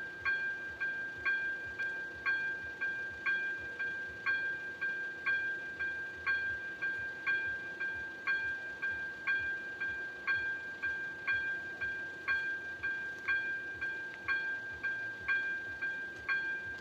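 Railway level-crossing warning bell ringing steadily at about two strokes a second, with a sustained ringing tone between the strokes, signalling that the crossing is closed for an approaching train.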